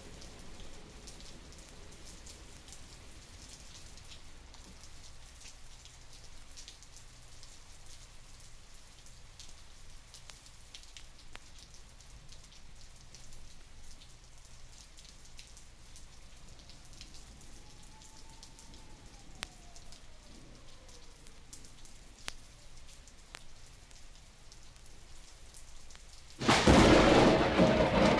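Steady rain with scattered light ticks from a vinyl LP transfer, then, about a second and a half before the end, a sudden loud clap of thunder.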